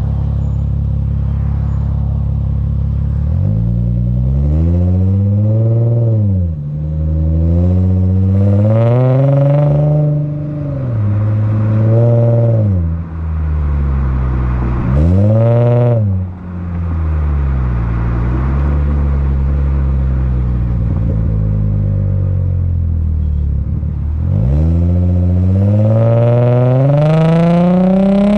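Lexus IS350's 3.5-litre V6 heard right at the tailpipe through an HKS Hi Power cat-back exhaust with an Invidia mid-pipe. It idles steadily at first, then makes several hard accelerating pulls, each rising in pitch and dropping sharply at an upshift. After a stretch of steady cruising, another long rising pull comes near the end.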